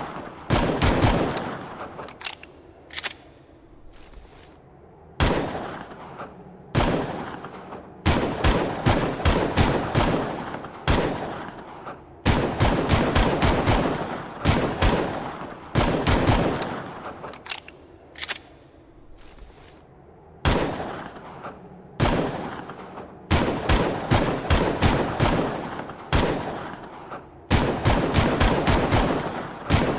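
Longslide pistol sound effect firing in rapid volleys of several shots each, every volley trailing off in echo, with short pauses of about a second between volleys.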